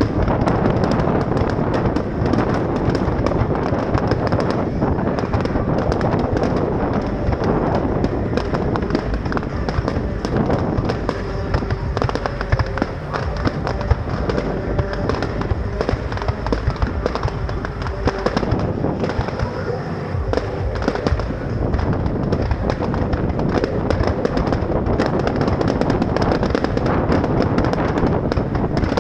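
Fireworks display: a dense, continuous barrage of bangs and crackling from aerial shells.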